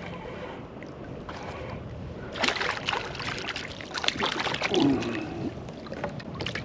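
Water splashing and sloshing as a hooked fish thrashes at the surface beside a kayak, with knocks against the hull. The splashing comes in a burst of repeated splashes from a little past two seconds in to near the end, over a steady low hiss.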